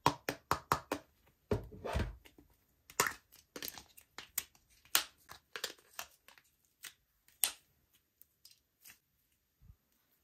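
Slime-making materials worked by hand, sticky crackles and pops as they are pressed, stretched and crushed. The pops come thick and irregular for the first few seconds, then thin out to scattered ones and die away near the end.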